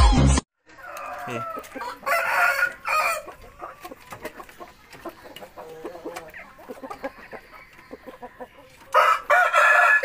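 Rooster crowing twice, a call about a second long some two seconds in and another near the end, with light clicking between the calls.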